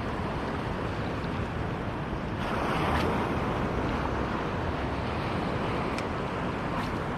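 Sea surf washing in with wind on the microphone: a steady rush that swells a little under halfway through, with a few faint ticks.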